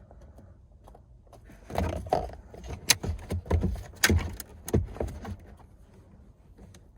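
Keys jangling and clicking in a car interior for a few seconds, from about two seconds in until about five seconds in, as things are handled to test the newly fitted lights.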